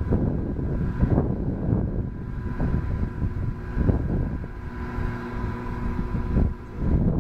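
Wind buffeting the microphone in gusts, a heavy low rumble that swells and eases, with a faint steady hum underneath.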